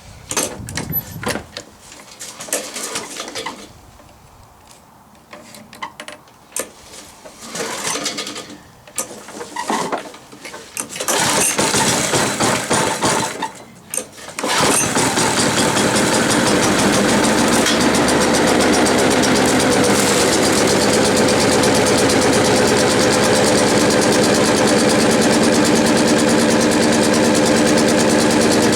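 Challenge Xtreme 3.5 hp four-stroke lawn mower engine being pull-started from cold on two-year-old petrol. Several short tugs on the recoil starter come first. The engine runs briefly about eleven seconds in and cuts out, then catches about fourteen seconds in and settles into steady running.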